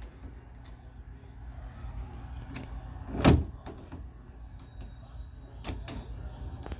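Doorknob hardware being handled while being lined up on a door: scattered small clicks and taps, with one louder knock about three seconds in.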